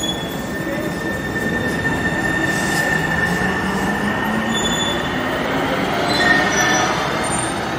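Link light rail train pulling out of the station and picking up speed, with continuous wheel-on-rail running noise. A steady high tone fades out about five seconds in, and a low hum rises in pitch about three seconds in as the train accelerates.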